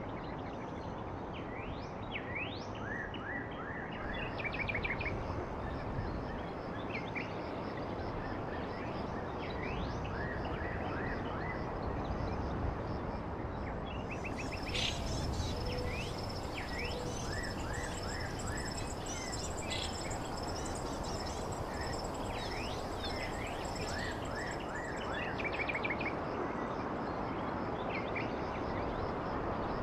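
Birds chirping repeatedly over a steady background noise, with a steady high whine that comes in about halfway through and stops a few seconds before the end.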